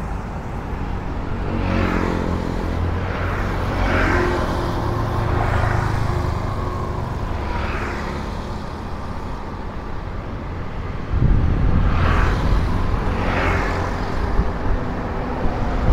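Road traffic: steady noise of passing vehicles. An engine note stands out for a few seconds about two seconds in, and the traffic grows louder about eleven seconds in.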